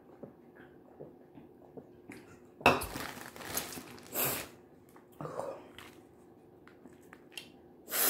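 Close-up eating and handling noise from boiled crawfish and their wrapping: faint small clicks at first, then a few loud crackling and crinkling bursts, the sharpest about two and a half seconds in.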